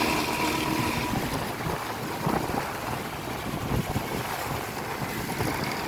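A Hino AK8 bus's front-mounted diesel engine running, with an uneven low rumble and wind buffeting the microphone.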